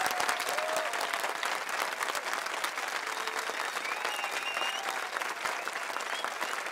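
A large crowd of students applauding: dense, steady clapping.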